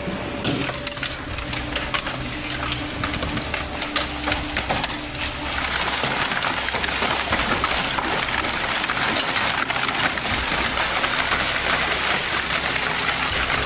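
Hailstones striking a wooden deck and lawn, at first as scattered sharp clicks. About five seconds in they thicken into a dense, steady hiss of heavy hail and rain.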